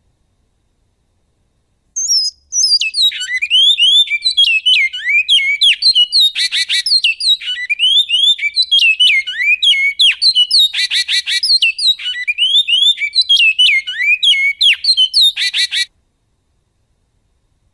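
Male bicudo (great-billed seed-finch) singing one long, fast song phrase of rapid slurred whistled notes with a few harsh buzzy notes mixed in. It starts with a short note about two seconds in and stops abruptly near the end.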